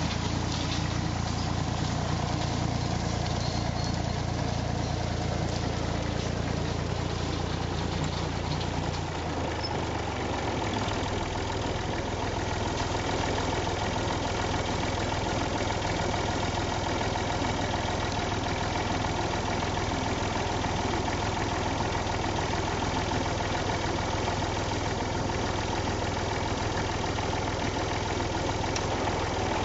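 1958 Massey Ferguson 35 tractor engine running steadily while powering a 6-foot John Deere bush hog; its note changes about ten seconds in and then holds steady.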